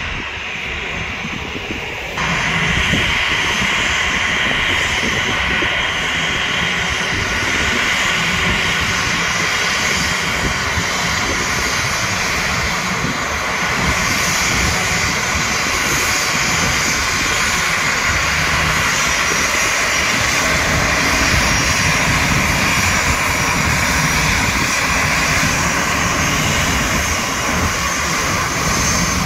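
Jet airliner's two turbofan engines running at taxi power, a steady whine and rush as the aircraft taxis and turns close by; it gets abruptly louder about two seconds in, then holds steady.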